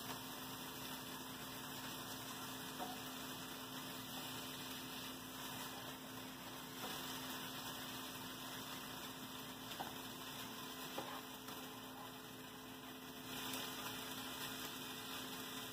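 A steady electrical hum under the faint, even sizzle of diced chicken frying in a pan on a gas burner, with a few light clicks of a spatula stirring it.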